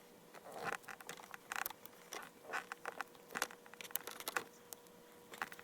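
Faint, irregular clicks and rustles of hands handling a plastic dash trim piece, fitting foam padding around its clips.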